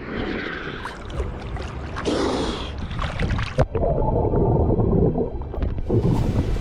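Seawater sloshing and gurgling around a microphone in the shallows, with an uneven rushing and a few sharp clicks.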